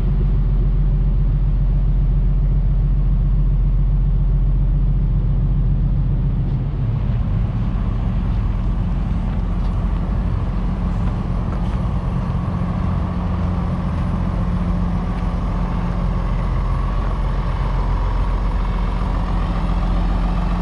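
Hino 268's six-cylinder diesel engine running steadily, its level dipping slightly about six seconds in.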